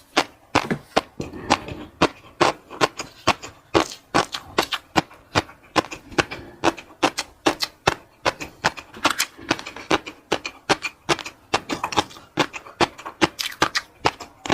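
A person eating: quick, irregular clicks of chewing and mouth sounds, several a second.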